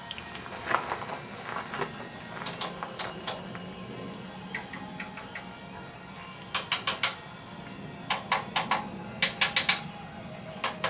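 Sharp mechanical clicks in quick clusters of three or four, from the foghorn unit's switch and controls being worked, over a faint steady hum. The horn itself does not sound: the unit fails to start.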